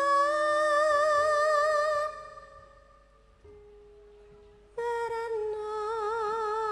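A female singer holds long notes with vibrato in a Javanese langgam, sung in campursari style with band accompaniment. The first note fades about two seconds in, and a soft steady instrumental tone carries the quiet gap. A new long, wavering note begins near the end.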